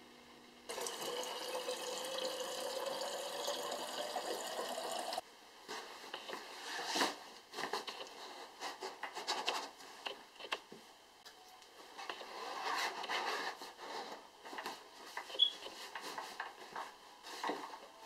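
A steady rushing hiss that cuts off abruptly about five seconds in, then irregular rustling with soft knocks and clicks as a hand rummages through a fabric pack stuffed with wool fleece.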